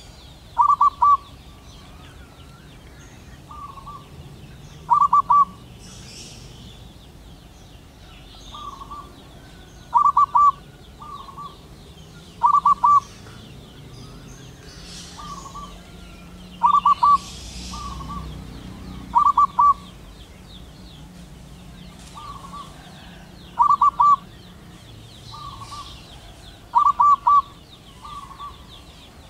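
Zebra dove cooing: short stuttering phrases of quick staccato notes, repeated every one to three seconds, with louder and softer phrases alternating.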